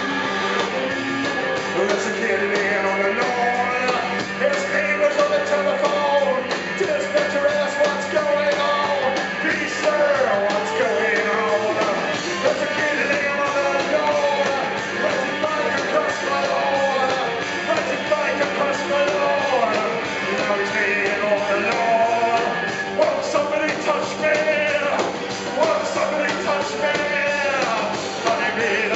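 Live rock band playing, with a male lead singer singing into a handheld microphone over guitar and drums.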